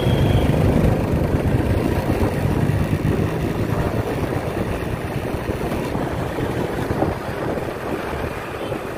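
Motorcycle engine running as the bike rides through city traffic, with wind rushing over the microphone; the engine hum is strongest at the start and eases gradually.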